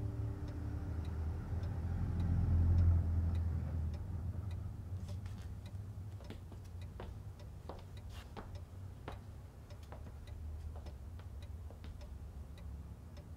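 Clock ticking steadily, about two ticks a second, over a low hum that swells and fades in the first few seconds. A few louder irregular clicks come in the middle.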